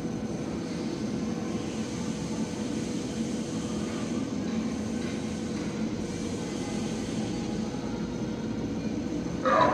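Animatronic Hesperosaurus's drive mechanism running with a steady mechanical hum and a faint whine while the figure moves slowly. Near the end a brief, louder burst of sound cuts in.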